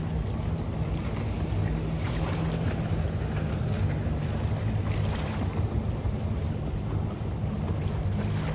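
Boat engine running steadily while under way, with wind buffeting the microphone.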